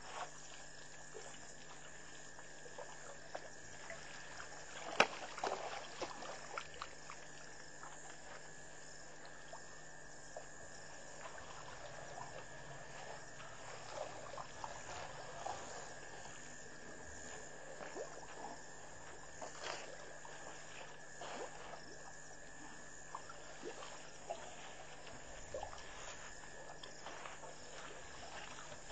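Elephants drinking at a waterhole: irregular trickles and splashes of water from their trunks, with a sharp knock about five seconds in, over a steady high hum.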